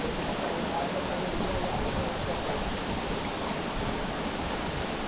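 Steady rushing of flowing water, a jungle stream or waterfall.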